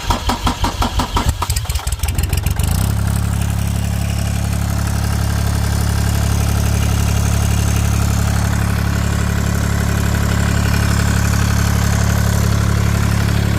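Laidong KM385 three-cylinder diesel engine cranking on the starter for about three seconds, then catching and settling into a steady idle, its fuel system just bled after running out of diesel.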